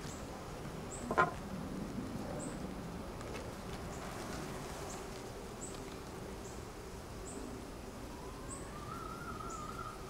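Honeybees buzzing in a steady hum over an open hive as a frame of comb is lifted out, with a single sharp knock about a second in.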